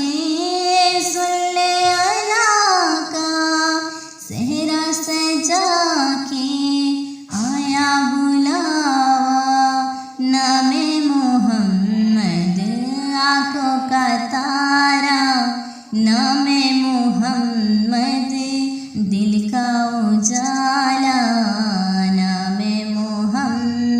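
A naat, an Urdu devotional song, sung by a high solo voice in long, gliding phrases with short breaks for breath every few seconds.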